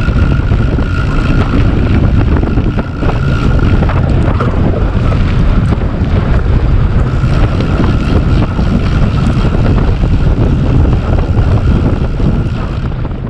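Wind buffeting the microphone on a moving bicycle, a loud steady rumble with a thin high tone running under it. It fades out at the very end.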